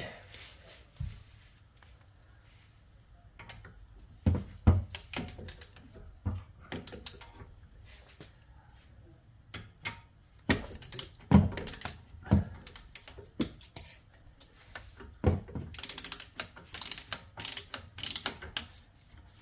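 Ratcheting torque wrench with a 21 mm socket clicking in short runs on the brake caliper bolts, with scattered metallic clinks and knocks from the tool.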